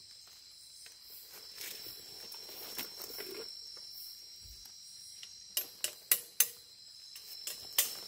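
Steady high chorus of night insects, with several sharp clicks and knocks in the last three seconds.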